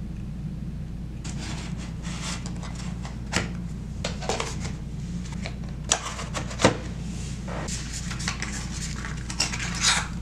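Small cardboard boxes being handled and set down on a wooden tabletop: scattered light knocks, taps and rustles, with two sharper knocks about six and seven seconds in.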